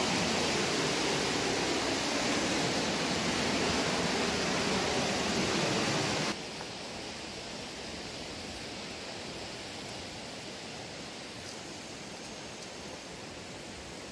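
River water rushing over rocks in a steady hiss, cutting suddenly about six seconds in to a quieter, softer flow.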